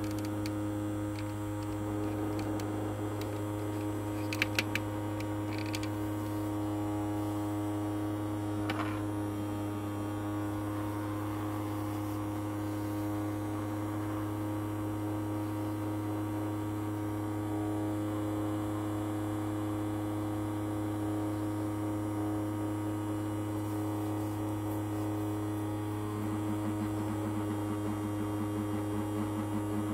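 Small ultrasonic cleaner running with coins in its water bath: a steady electric hum, with a few brief ticks about four and nine seconds in, and a faster low pulsing near the end.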